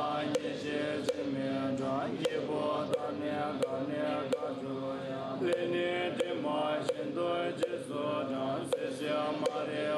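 Tibetan Buddhist mantra chanting by voices in unison over a drone, with a light regular tick about one and a half times a second.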